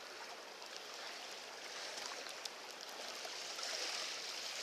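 Calm seawater washing softly against the shore, a faint steady hiss that grows a little louder toward the end.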